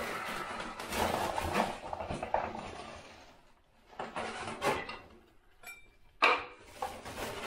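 Rasping of an old handsaw cutting through a plasterboard ceiling to enlarge a downlight hole for about three seconds, followed by a few sharp knocks.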